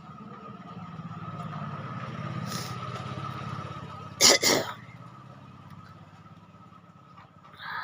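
Two sharp, explosive coughs in quick succession about four seconds in, over a low engine hum that swells and then fades.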